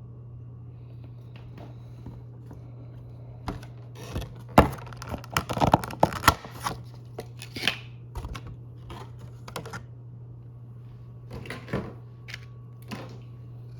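Cardboard collection box packaging being handled: a run of clicks, taps and rustles, busiest about four to seven seconds in, with a few more near the end, over a steady low hum.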